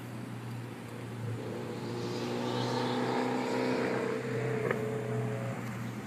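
Exhaust of a 2012 Chevy Malibu's 2.4-liter Ecotec four-cylinder idling while it warms up, a steady hum at the tailpipe. The note swells louder through the middle and eases off near the end.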